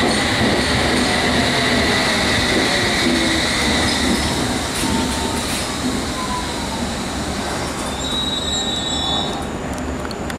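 London Underground S7 Stock train running through the station, a steady rumble with high, drawn-out wheel squeal.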